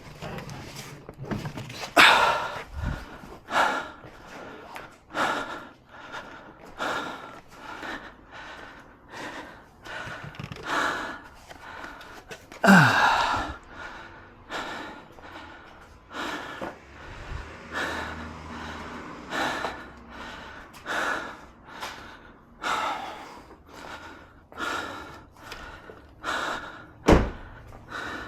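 A person breathing hard in short, regular breaths about once a second while working close to the microphone. A few dull thunks, louder than the breaths, come about 2 seconds in, near the middle and near the end.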